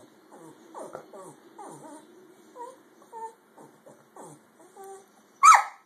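A dog squealing and whimpering: a string of short, high whines that slide in pitch, then one much louder squeal near the end.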